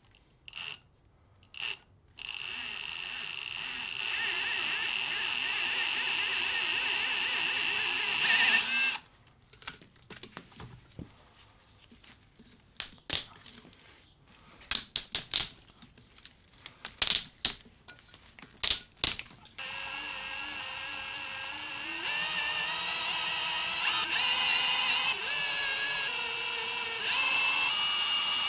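Cordless drill spinning a motorized wire stripper, running in two long stretches as copper wire is fed through. Its whine steps in pitch several times as the load changes. Between the two runs comes a string of sharp clicks and knocks.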